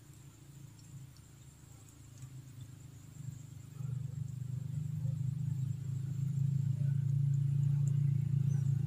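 A low, steady drone that grows clearly louder about four seconds in and then holds, with a few faint ticks over it.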